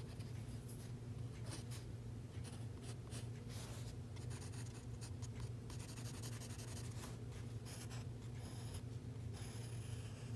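Mechanical pencil scratching on sketchbook paper in quick, irregular hatching strokes as fur is shaded, over a steady low hum.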